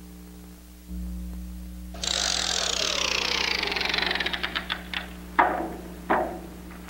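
Moviola running with a steady motor hum, playing back a bicycle freewheel's clicking. From about two seconds in the rapid ticking slows and drops in pitch, and two sharp clicks come near the end.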